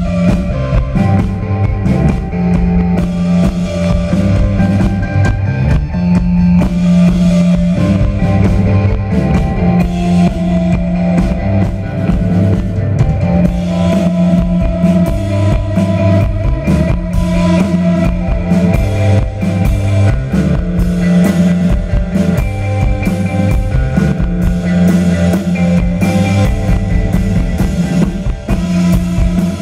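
Live rock band playing an instrumental passage: electric guitar, electric bass and drum kit, loud and continuous, with a bass line that moves between notes.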